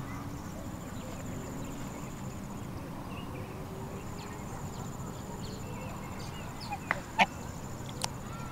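White domestic goose dabbling in shallow water at the bank, over steady low outdoor noise with a few faint short calls. Sharp splashy clicks sound about seven seconds in and again about a second later.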